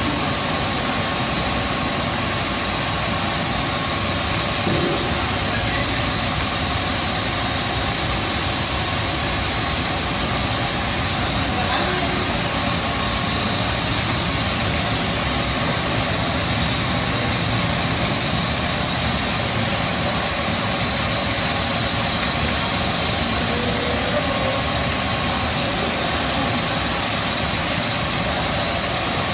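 Machinery of a snack production line running: a steady, even noise of motors and conveyors with a few faint steady tones, holding the same level throughout.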